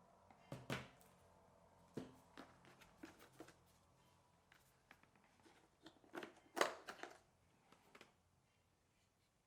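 Hands handling a laptop's box and packaging: scattered rustles, taps and knocks, the loudest cluster about two-thirds of the way in.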